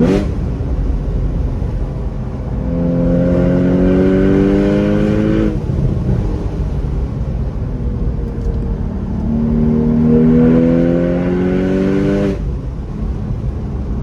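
Porsche Boxster S (981) 3.4-litre flat-six on its stock exhaust without the sport exhaust option, accelerating twice. Each time the engine note climbs steadily in pitch for about three seconds, then cuts off abruptly at a shift or lift, over a constant low road rumble.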